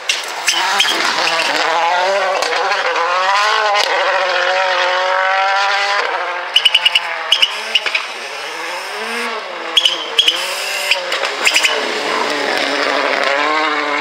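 Toyota Yaris WRC rally car's turbocharged 1.6-litre four-cylinder engine revving hard, its pitch climbing and dropping again and again through gear changes, over several passes. About halfway in, and twice more later, clusters of sharp cracking pops from the exhaust are the loudest sounds.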